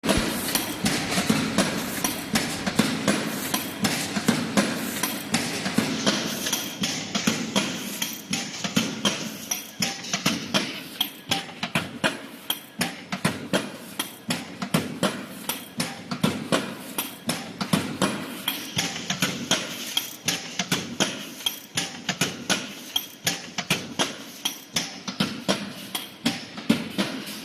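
Semi-automatic 63-ton press line stamping aluminium foil containers in a two-cavity mould: sharp, repeated knocks about twice a second over a steady machine noise.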